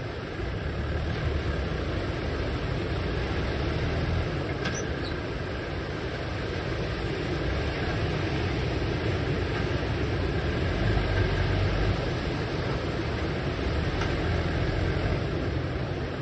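Steady rush of surf breaking on the beach, with wind rumbling on the microphone.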